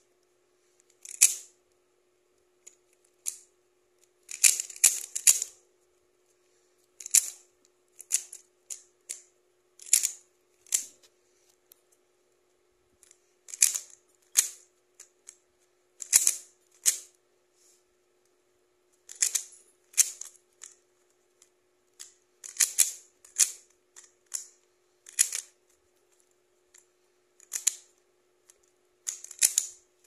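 Stickerless 3x3 speed cube being turned by hand: quick plastic clicks and rattles as its layers are twisted, in short irregular runs of moves with brief pauses between.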